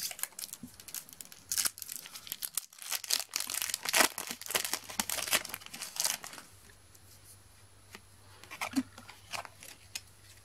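Foil trading-card packet being torn open and crinkled in the hands: a dense run of crackling for about six seconds, then only a few faint clicks.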